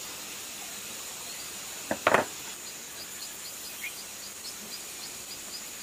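Faint insect chirping, evenly spaced at about four chirps a second, over a steady high hiss; a brief louder clatter about two seconds in.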